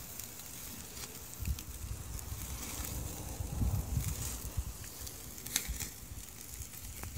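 Chicken sizzling on a charcoal kettle grill over mesquite briquettes: a faint steady hiss with a few small crackles, over a low fluctuating rumble.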